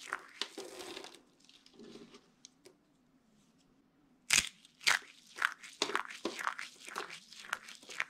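Dry soap curls crunching and crackling as they are crushed in the hands. After a quiet pause, two sharp, loud snaps come about half a second apart a little past the middle, followed by a run of rapid crunching.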